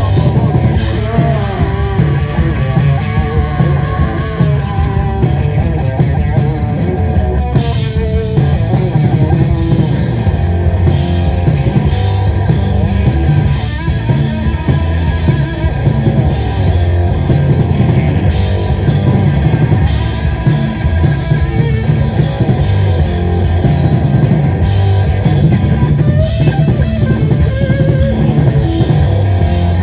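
A live rock band playing loud, with electric guitar and a drum kit.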